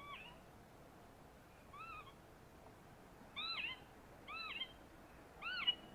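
A recorded bird call played through a portable bird-lure speaker: a short call note that rises and then falls in pitch, repeated about five times roughly a second apart, the first one faint.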